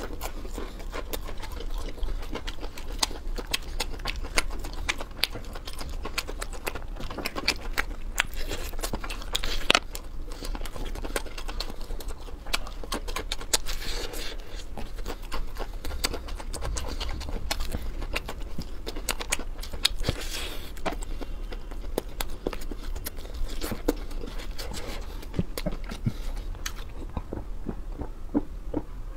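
Close-miked chewing of crispy battered fried chicken: a continuous run of small crackling crunches and wet mouth clicks, quieting near the end.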